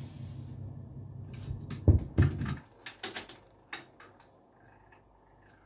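Music fading out as the record ends, then a radiogram's record changer clicking as the tonearm lifts off the polycarbonate disc and swings back to its rest. Two low thumps come through the loudspeaker about two seconds in, and the low hum stops soon after as the turntable switches off. A few more sharp mechanism clicks follow.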